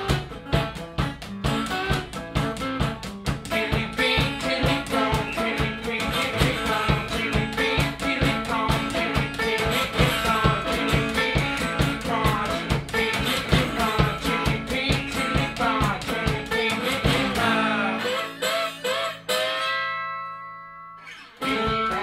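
Blues one-man-band music: acoustic guitar played over a steady low beat, with a singing voice. About seventeen seconds in the beat drops out and one long held note fades away, then the full groove comes back in just before the end.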